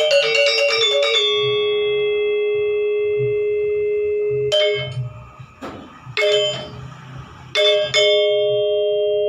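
Instrumental music on tuned, struck metal bars, bell-like in tone. A quick run of notes ends about a second in and leaves a chord ringing for several seconds. After a quieter stretch with a few scattered strikes, another chord is struck near the end and rings on.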